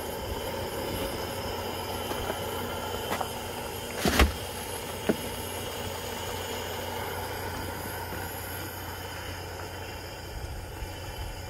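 Steady rumble and hiss of wind on the microphone while a pot of ramyeon boils on a portable gas burner. A sharp knock about four seconds in, and a lighter click about a second later.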